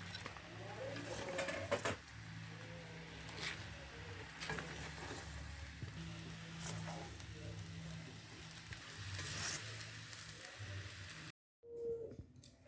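Crabs in oyster sauce sizzling in a pan, with a spatula scraping and clicking against the pan as they are lifted out. The sound cuts off abruptly near the end.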